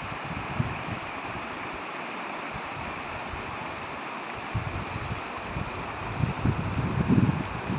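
Shallow, rocky mountain river rushing steadily over stones. From about halfway through, wind buffets the microphone in irregular low gusts.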